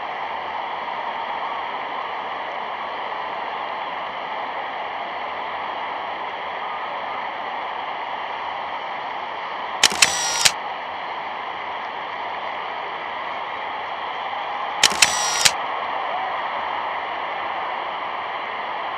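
Steady hiss of an old optical film soundtrack, with two short clusters of sharp clicks about ten and fifteen seconds in.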